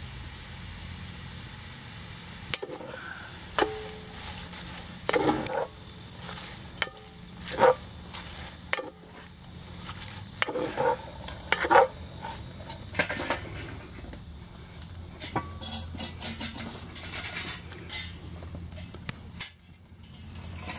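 Wooden spoon stirring collard greens frying in a cast-iron Dutch oven: a run of scrapes and knocks against the pot, with the greens sizzling as they wilt. Lighter clicks and clatter come in the later seconds.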